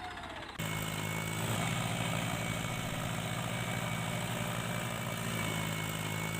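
A motor running steadily with a fast, even pulse, starting abruptly a little over half a second in.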